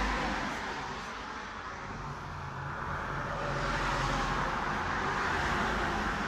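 Road traffic noise: vehicles passing on a street, swelling at the start and again in the second half.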